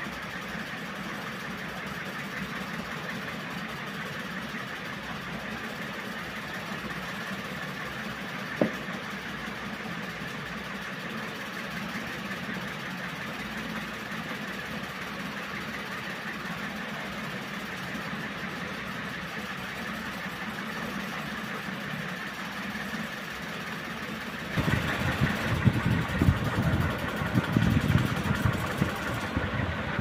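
Matsunichi CS-149 metal-bladed ceiling fan running: a steady whir of its motor and blades, with one sharp click about a third of the way through. Near the end the blades' airflow buffets the microphone with a louder, uneven rumble.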